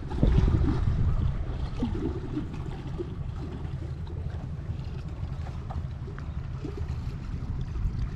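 Wind buffeting the microphone outdoors as a steady low rumble, heaviest in the first second and then settling.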